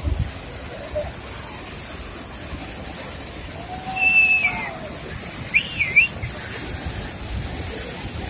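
Steady rush of water pouring down a dam's open spillway gates. A person whistles a held note about four seconds in, dipping at the end, then a short warbling whistle a second and a half later.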